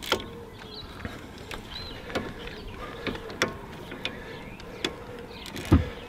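Hand ratchet wrench clicking as a brake caliper bolt is worked loose and backed out, a sharp click every half second to a second, with a heavier metal knock near the end.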